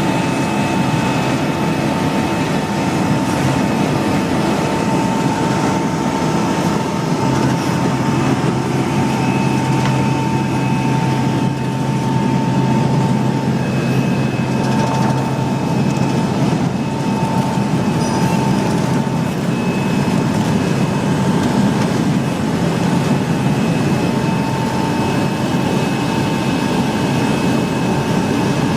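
Vegetable cutting and washing machine line running: a loud, steady machine noise with a constant whine over a low hum.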